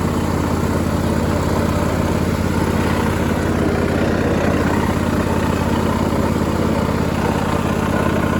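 Craftsman lawn tractor's small engine running steadily as the tractor drives along under its own power.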